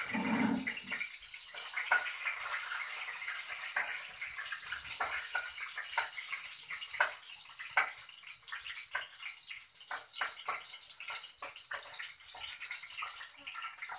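A spatula scraping and clinking against a pan on a gas stove, many short strokes, over a steady watery hiss of the liquid cooking in the pan.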